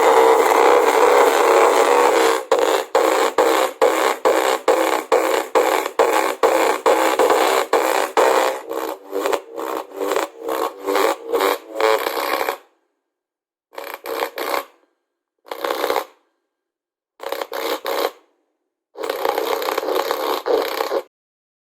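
Music playing loud through a small portable speaker with a plastic bag of water resting on it, the sound thin and without bass. It pulses about twice a second. After about twelve seconds it comes only in short bursts with dead silence between them.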